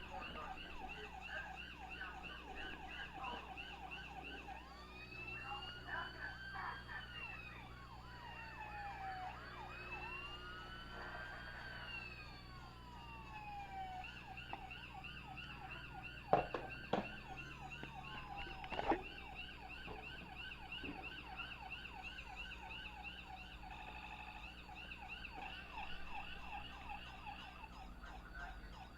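Several electronic toy sirens sounding at once: a fast, steady warbling yelp, overlapped in the first half by slower rising and falling wails. A few sharp clicks come a little past the middle.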